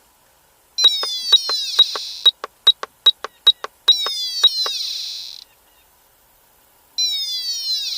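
Electronic chirping from a smart key's signal being picked up during the signal test. It comes in three bursts of falling high-pitched sweeps about three seconds apart, with a quick run of sharp clicks through the first half.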